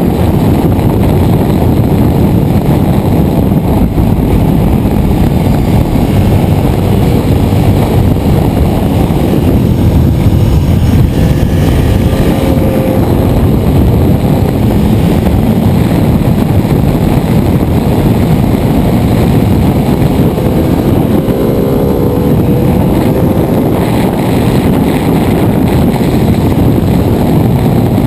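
Ducati 848 Evo's L-twin engine running at speed on track, buried in a steady, loud rush of wind over the onboard camera. The engine's pitch shows through faintly, rising about halfway through and again later as the bike drives out of corners.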